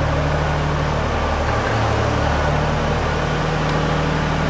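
Machinery running with a steady low hum over a hiss, its pitch shifting slightly about halfway through.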